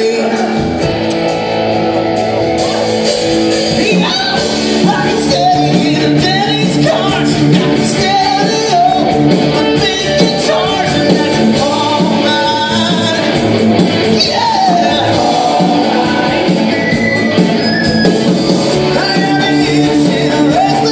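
Live rock band with electric guitars playing a loud stage-musical number, with singers over it.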